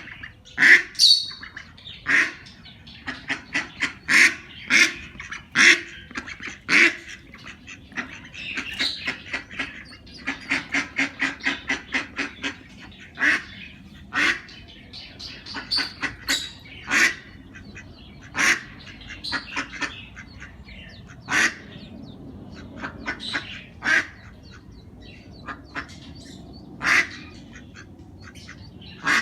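Ducks quacking in short, sharp calls, with a quick run of about four calls a second near the middle, among other birds calling.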